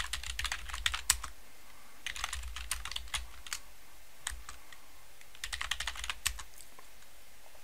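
Typing on a computer keyboard: three runs of quick keystrokes with short pauses between them.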